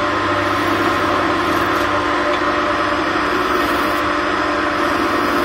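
Wood lathe running with a steady hum while a chisel cuts the spinning linden blank.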